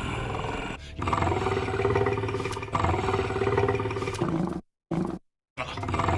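Cartoon alligator sound effect: a run of deep, gritty roars one after another, with two abrupt dead-silent cuts between them a little past the middle.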